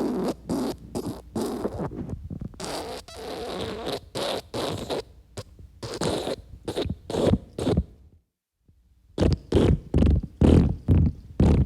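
Diarrhea sound effect: a run of sputtering farts and splatters in quick, irregular bursts. It stops for about a second some eight seconds in, then another sputtering run follows.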